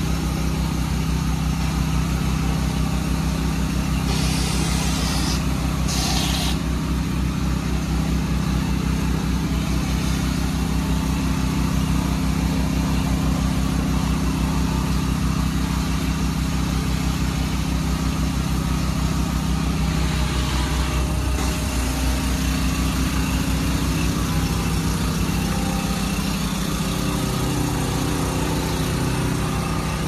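An engine running steadily, a constant low drone. Short hissing noises break in about four seconds in, again at about six seconds, and once more near twenty seconds.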